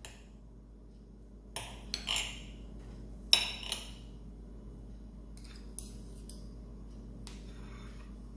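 Metal cutlery clinking and scraping against a plate or dish as the cake is cut and handled: several short, separate clinks, the loudest about three seconds in.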